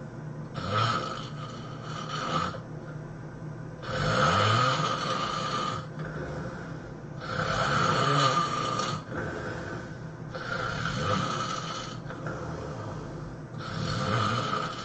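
A person snoring: five long, rasping snores about three seconds apart, each lasting one and a half to two seconds.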